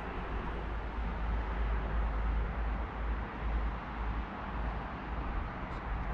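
Steady rushing outdoor noise with a deep, unsteady rumble underneath.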